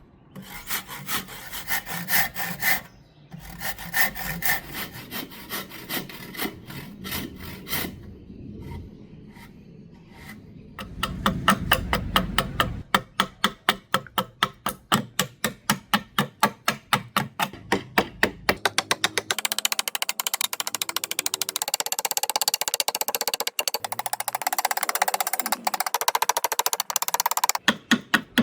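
A hand tool working hardwood in quick back-and-forth strokes, about three a second, in several short runs: the rasping, sawing sound of shaping wood by hand.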